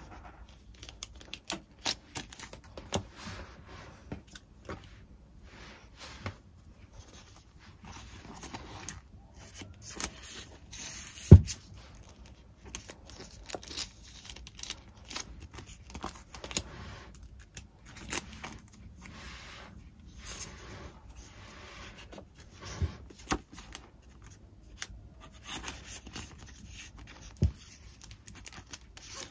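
Close-up desk work with paper and stationery: irregular rustling, tearing and small clicks and taps. A sharp knock comes about eleven seconds in, and softer knocks come near the end.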